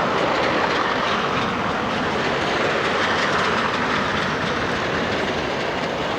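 Tram rolling past on its rails: a steady, loud rumble of wheels on track that swells a little about halfway through.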